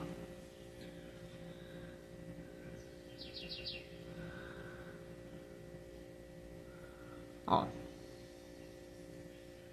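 Quiet room tone with a steady electrical hum. A quick run of faint high chirps comes about three seconds in, and one short sudden sound about seven and a half seconds in.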